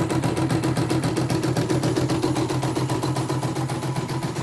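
CNY E900 portable computerized embroidery machine stitching, its needle working in a rapid, even clatter over a steady motor hum. The freshly repaired machine is running fast and smoothly, with no trouble.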